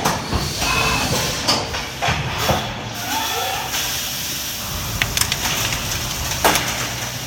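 A Haas VF-2SS CNC mill's 12 mm four-flute carbide end mill is side-milling S355 steel plate at full depth, at about 8,000 rpm under flood coolant. It makes a steady hissing cutting noise over a low machine rumble, with a couple of sharp ticks in the second half.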